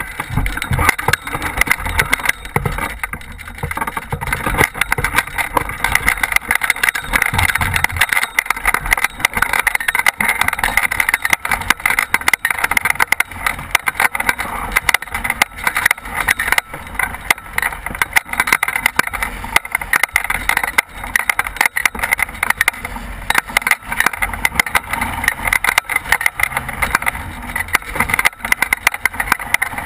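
Airflow rushing and buffeting over the microphone of a camera mounted on a hang glider in flight: a loud, gusty rushing noise with no engine.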